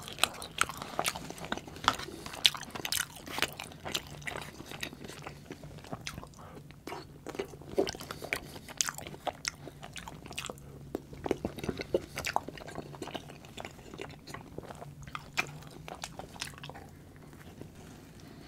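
Close-miked chewing of fries: many sharp crunchy clicks in quick succession, thinning out over the last few seconds.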